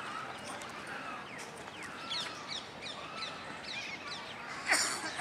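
Many birds calling and chirping, with many short falling chirps, and one loud, harsh call about four and a half seconds in.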